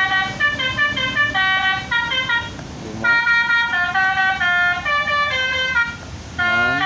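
Electric telolet horn module, Arduino-driven through a class-D amplifier, playing a melody of short horn-like notes stepping up and down in pitch. It pauses briefly twice, and each new phrase opens with a quick rising sweep.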